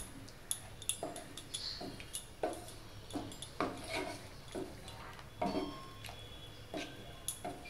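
Wooden spatula stirring thick chickpea gravy in a stainless steel sauté pan: soft wet squelches and light knocks of wood against the steel, coming irregularly about twice a second, as water is worked in to make the gravy.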